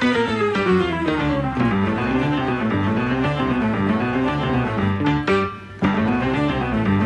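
Background music playing, with a brief drop in level about five and a half seconds in.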